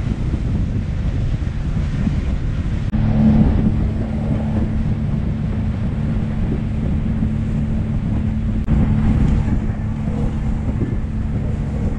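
Outboard engine of a rigid inflatable speedboat running at speed with a steady drone, mixed with wind buffeting the microphone and water rushing past the hull. The sound breaks briefly about 3 seconds in and again about 9 seconds in.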